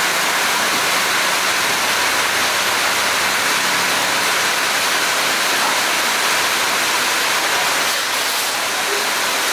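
Heavy rain falling, a loud steady hiss.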